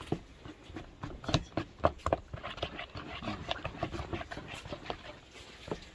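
A fork stirring thick cake batter in a plastic bowl, with irregular clicks and wet slaps as it knocks the bowl and works the dough.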